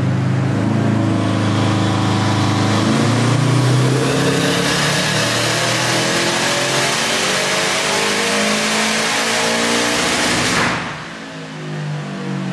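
Turbocharged 2.5-litre flat-four of a 2010 Subaru WRX STI making a full-throttle pull in fourth gear on a hub dyno, revs climbing steadily. About ten and a half seconds in the sound cuts off suddenly as the throttle closes, falling back to a lower, quieter engine note.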